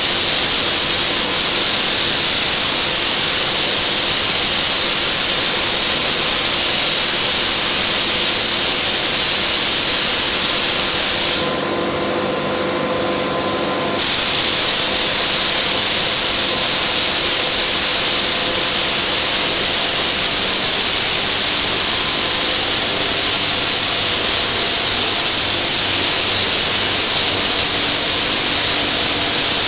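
Gravity-feed paint spray gun hissing steadily as compressed air atomises paint. The hiss stops for a couple of seconds about halfway through as the trigger is released, leaving a quieter background hum, then starts again.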